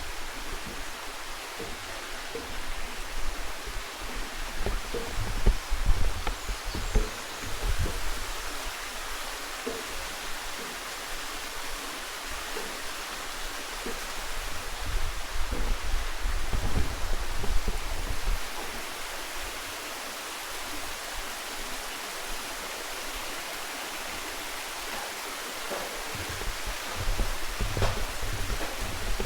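Steady rushing of a mountain stream's water, with irregular low thuds on the microphone.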